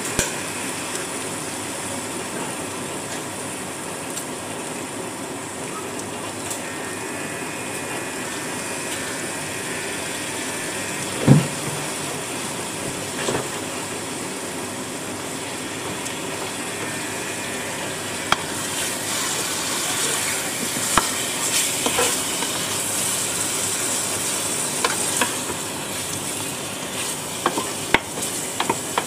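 Turkey legs and onions sizzling as they brown in a stainless steel pot, the sizzle growing louder and brighter about two-thirds of the way through. Scattered sharp clicks of utensil on pot, and one louder thump about eleven seconds in.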